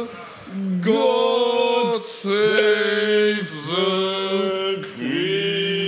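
Male voices singing a chant in long held notes, with short breaks between the notes.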